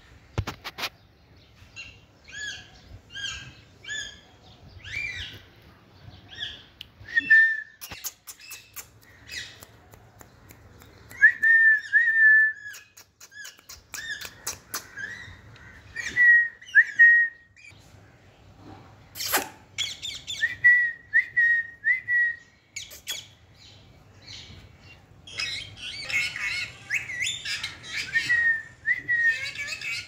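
Young Indian ringneck parakeet calling in a series of short, high chirps and squawks, with a denser run of calls near the end. A few sharp clicks are mixed in.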